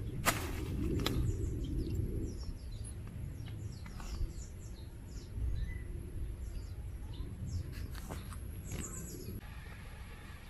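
Many small birds chirping, quick high notes coming one after another, over a low rumble.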